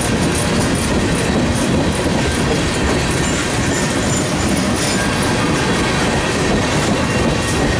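Norfolk Southern mixed freight train's tank cars and covered hopper rolling past, a steady rumble of steel wheels on the rails.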